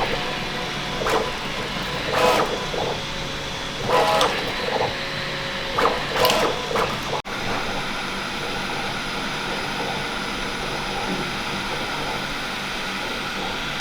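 Bambu Lab 3D printer at work: the stepper motors sound in short whirring moves, one every second or two. After a cut about seven seconds in there is a steady whir with a constant hum.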